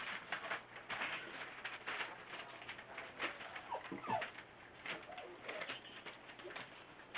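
Newfoundland puppies nursing and jostling, giving small squeaks and whines, with one rising whine about four seconds in, over scuffling and rustling.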